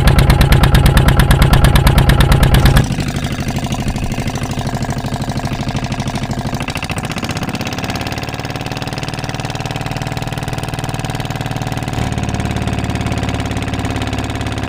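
A fishing boat's engine running steadily with a fast, even chugging as the boat moves across the water. It is loud at first and drops to a lower, steady level about three seconds in.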